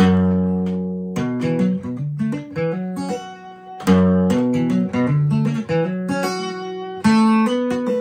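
Acoustic guitar with a capo playing a solo intro. A full chord is struck and rings out at the start, again about four seconds in and once more near the end, with single notes picked in between.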